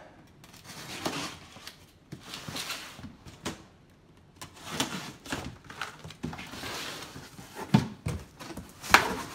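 A pocket knife slicing through packing tape along a cardboard box's seams in several scraping strokes, then the cardboard flaps being pulled open, with two sharp knocks near the end.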